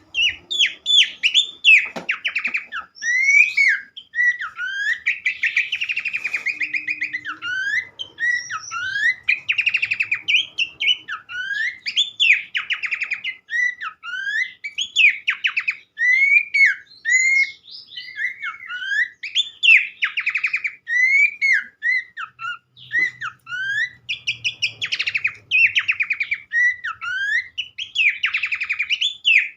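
Pelanduk semak (Horsfield's babbler) singing continuously: a fast stream of short, swooping whistled notes mixed with rapid chattering trills.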